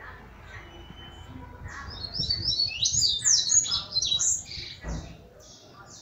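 Caged double-collared seedeater (coleiro) singing a loud, fast run of high notes in the tui-tui style for about three seconds, followed by softer chirps. A short low thump comes near the end.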